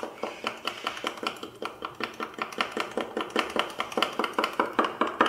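Metal bar spoon stirring milk tea in a shaker cup, clinking against the cup's sides in a quick, steady rhythm of about six strikes a second.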